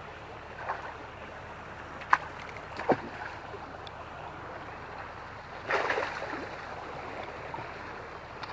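Small creek running steadily in the background, with a few sharp clicks and knocks, the loudest about two and three seconds in, and a brief louder rush of noise around six seconds in.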